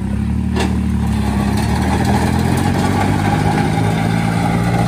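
Tractor engine running steadily after speeding up right at the start, as if taking up load for towing, with a short click about half a second in.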